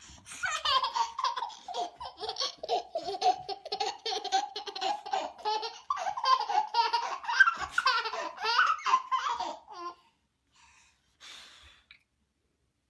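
Baby belly-laughing at being tickled on the tummy: a long run of quick, rhythmic laughs that stops about ten seconds in.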